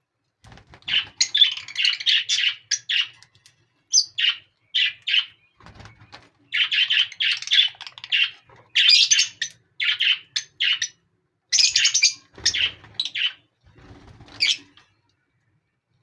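Small pet parrots chattering in quick, high-pitched chirps, coming in bursts of a second or two with short gaps between.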